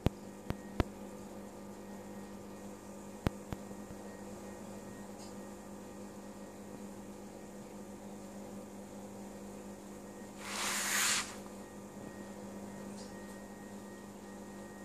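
Steady low electrical hum of aquarium equipment, with several faint steady higher tones. A few sharp clicks come in the first few seconds, and a brief hiss lasting about a second comes about ten and a half seconds in.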